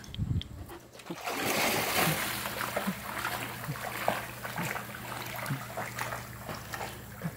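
A German Shepherd entering a swimming pool from its step with a splash about a second in, then swimming steadily, the water sloshing and lapping around it.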